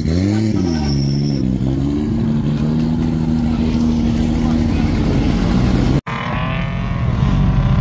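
Whipple 2.9-supercharged V8 of a third-generation Cadillac CTS-V revving up and down, then running steadily at low revs as the car creeps past. About six seconds in the sound cuts off abruptly and another car's engine is heard, its pitch falling and then rising.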